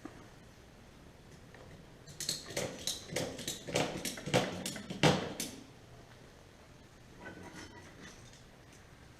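Objects being handled: an irregular run of a dozen or so sharp clicks and rattles, starting about two seconds in and lasting about three seconds, over a faint steady low hum.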